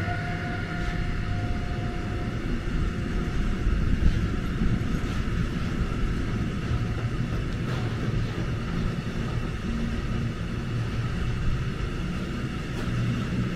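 A long freight train of loaded container wagons rolling past on the rails: a steady rumble of wheels on track with a few faint clacks. A high tone fades away in the first couple of seconds.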